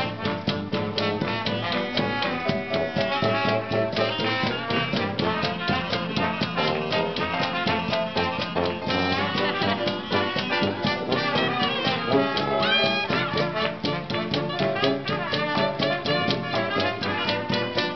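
Traditional New Orleans jazz street band playing at full swing: trumpet and trombone leading, with clarinet, piano, tuba and drums keeping a steady beat.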